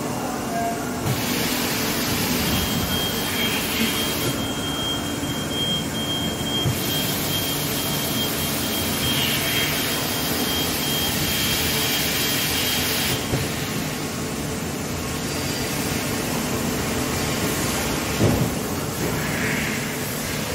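Haas EC-400 horizontal machining center running a cycle: a steady machine hum, with a hiss of coolant spray that switches on and off twice and a thin high whine for about ten seconds in the middle. A single knock comes near the end.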